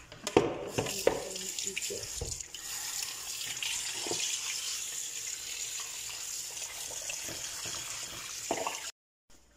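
Kitchen tap running steadily into a sink as hands rub and rinse a whole raw chicken in a bowl under the stream, with a few splashes and knocks in the first couple of seconds. The sound cuts off suddenly near the end.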